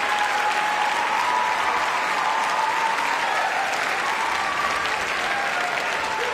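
Large audience applauding steadily, with a few voices calling out over the clapping.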